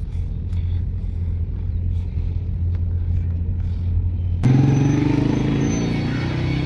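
Steady low rumble of a car driving, engine and road noise heard from inside the cabin. About four seconds in it cuts abruptly to louder crowd voices and music.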